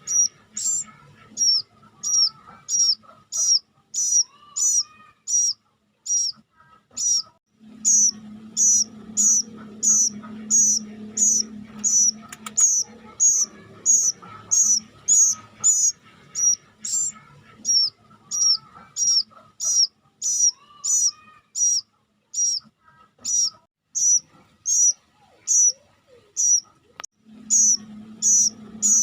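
Plaintive cuckoo chick giving short, high-pitched begging chirps, repeated steadily about twice a second.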